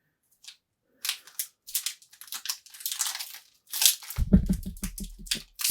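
Foil trading-card pack wrapper crinkling and tearing open in irregular crackles. About four seconds in, a low, rumbling belch lasts a second and a half.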